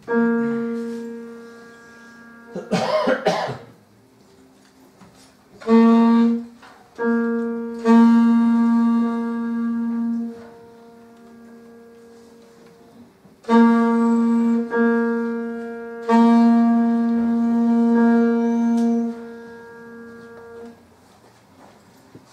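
Alto saxophone playing long, held low notes in phrases with short breaks between them, with piano accompaniment. A short rough burst comes about three seconds in.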